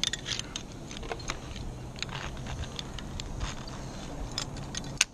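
Metal carabiners and a zipline trolley clinking and clicking as they are handled on the steel cable, with a sharper clink near the end.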